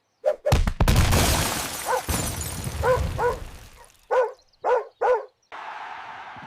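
A loud crash with a shattering, breaking noise, followed by a string of short dog barks, several coming in quick pairs.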